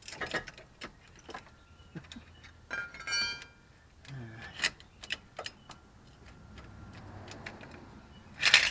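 Scissor jack being cranked by hand with its hooked metal handle: irregular metal clicks and clinks, a brief ringing squeak about three seconds in, and a louder metal clank near the end.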